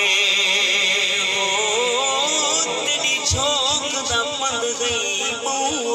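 A man singing a naat, an Urdu devotional song in praise of the Prophet, solo. He draws out long notes that waver and bend in ornamented turns.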